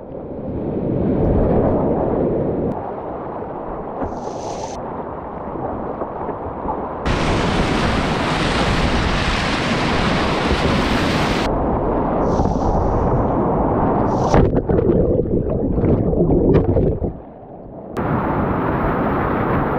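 Rushing whitewater and splashing picked up by a GoPro on a kayak run, with water and wind buffeting the microphone. The sound turns muffled and clear again abruptly several times.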